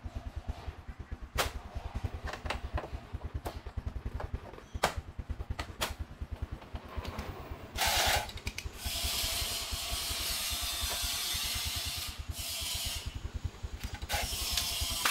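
Hard plastic fairing panels of a Honda Wave 110 scooter-style motorcycle clicking and knocking as they are fitted into place, over a low, fast, steady putter. From about eight seconds in, a steady hiss joins.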